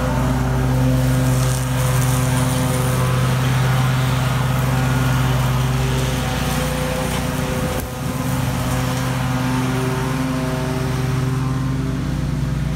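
Exmark stand-on commercial mower's engine running steadily at working speed while its blades mulch leaves, with a brief dip about eight seconds in.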